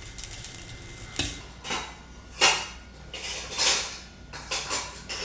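Metal utensil scraping and clinking against cookware in about six separate strokes, each under half a second, starting about a second in.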